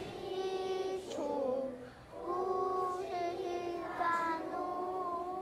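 Children's voices singing a song in long held notes, with a short break between phrases about two seconds in.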